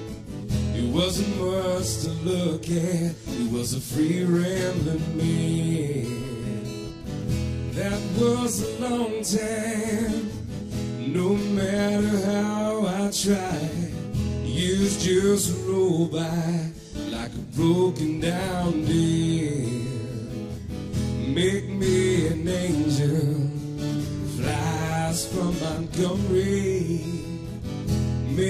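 Background music: a country-style song with acoustic guitar and a male voice singing.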